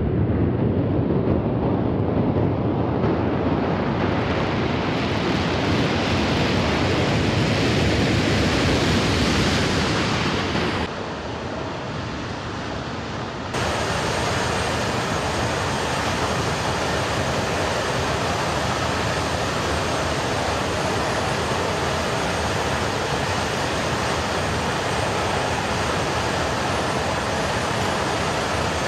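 Four Pratt & Whitney F117 turbofan engines of a Boeing C-17 Globemaster III running loud on its landing roll, a steady jet rush that grows brighter over the first ten seconds. After a brief quieter cut, the engines run on steadily with a faint high whine.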